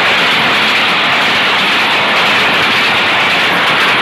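Pakistan Railways express passenger coaches passing at speed close by: a loud, steady rushing rattle of the train going past.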